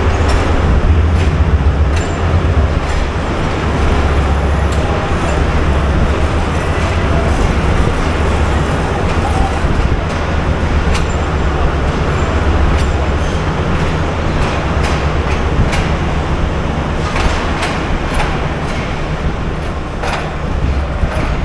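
Passenger train running on the rails: a steady, heavy low rumble with irregular sharp clicks of the wheels over rail joints.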